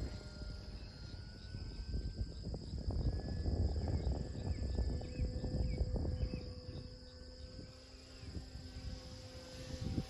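Wind gusting on the microphone, with a steady high insect trill and a few short chirps. From about halfway a faint steady whine comes in, the electric motor and propeller of an E-flite Carbon-Z Cessna 150T RC plane in flight.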